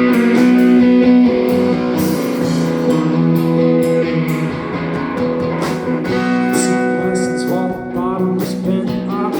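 Music: a band playing an instrumental passage led by guitar, with sustained notes over a steady beat.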